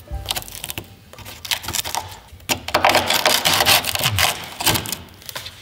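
Screwdriver tip scraping and picking at a rusted body corner of a VW Corrado G60: crumbly rust and underbody coating crackling and flaking away in a run of small scratchy clicks, densest a few seconds in. The crunchy sound is the sign of sheet metal badly rotted by rust.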